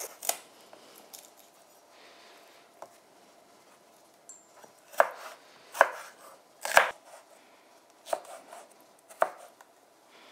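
Kitchen knife cutting a green bell pepper on a wooden cutting board: about eight separate sharp knocks of the blade on the board, spaced irregularly about a second apart, the loudest about two-thirds of the way through.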